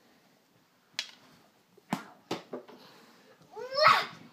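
Plastic toy hockey sticks clacking against a plastic ball: three sharp clacks in the first half, two of them close together. Near the end a young child lets out a loud, high squeal.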